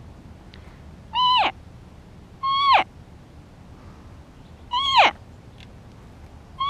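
Hand-blown cow elk call giving three mews of about half a second each, with a fourth starting right at the end. Each holds a high note, then drops sharply in pitch.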